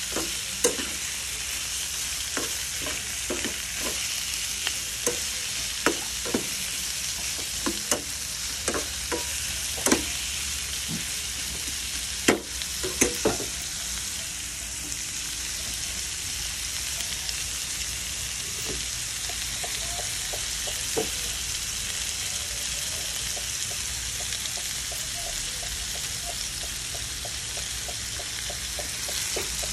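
Shrimp and chopped garlic frying in a pan with a steady high sizzle. A fork and spatula stirring them knock and scrape against the pan, with sharp clicks through the first half and lighter, quicker ticks later on.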